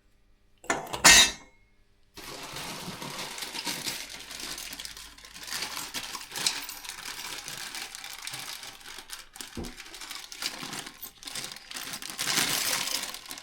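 A sharp clatter of parts about a second in, then steady rustling and crinkling of plastic packaging with small clicks as diesel heater kit parts are handled and unwrapped.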